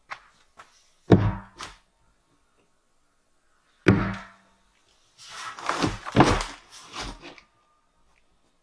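Dull thunks against a round black plastic septic tank as a level is set against its neck: two loud knocks with a short low ring, about a second and about four seconds in, and a smaller one between. Then about two seconds of scuffing and scraping of boots and hands in loose dirt beside the tank.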